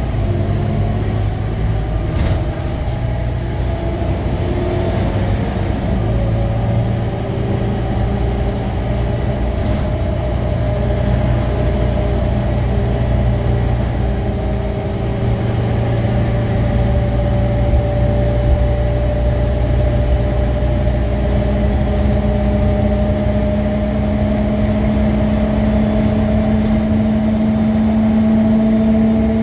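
Scania K310UA articulated bus under way, heard from inside the passenger cabin: a steady engine and driveline hum with a whine that slowly climbs in pitch over the second half. Two short sharp knocks, about two and ten seconds in.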